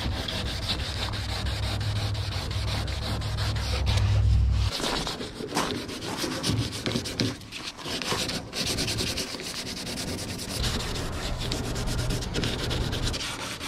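Hand wet sanding of marine finish primer with 320-grit sandpaper around a boat's rudder gudgeon fittings: a steady scratchy rubbing of paper on the wet primed surface in uneven strokes. A low rumble runs under it for the first few seconds and again near the end.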